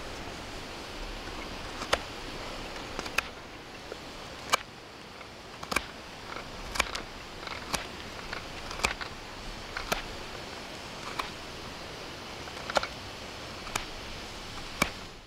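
Fixed-blade knife carving a wooden spoon ladle: sharp snicks as the blade takes cuts in the wood, about one a second, over a steady background hiss.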